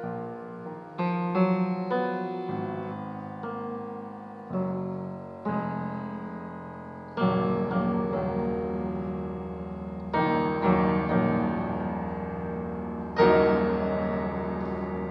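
Grand piano playing a slow series of chords, each struck and left to ring. The loudest chord comes about 13 seconds in and is held ringing.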